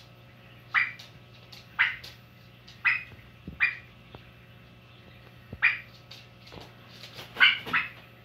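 Domestic turkey giving a series of short, sharp calls, about seven in all, roughly one a second with a quick pair near the end.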